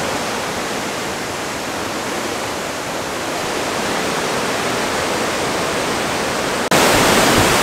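Loud, steady rushing of a fast mountain river's white-water rapids, swelling a little and then turning suddenly louder near the end.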